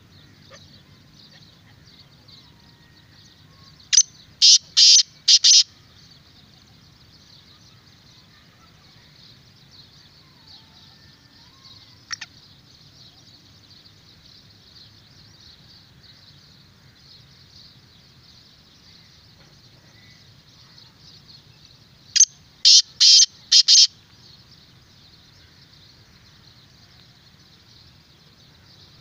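Black francolin calling twice, each call a loud run of about five harsh, separate notes, about four seconds in and again near twenty-two seconds, over a steady faint high hiss.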